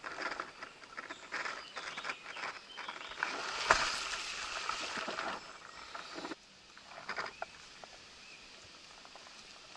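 Rustling and crackling of leaves, twigs and undergrowth right at the microphone as a prone player shifts in the brush, louder in the middle and dropping away suddenly a little after six seconds to faint scattered ticks.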